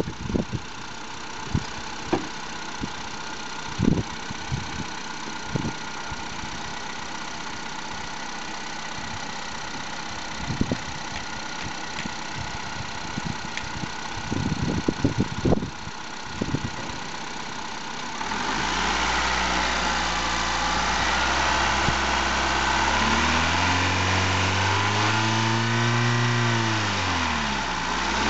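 Honda Civic's 1.8-litre R18A2 i-VTEC four-cylinder petrol engine idling steadily, with a few dull thumps. After about eighteen seconds it is revved: louder, the engine speed rising, easing off and rising again near the end.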